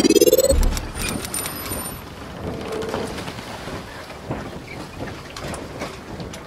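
Logo intro sound effect: a rising sweep ends in a deep boom about half a second in, followed by a steady rush of crackling noise.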